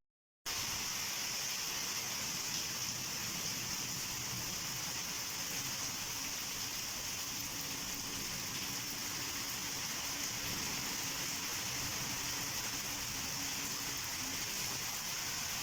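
Heavy rain falling in a steady hiss, starting abruptly about half a second in.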